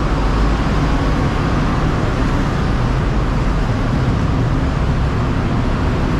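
Steady city street traffic noise, with the low rumble of vehicle engines.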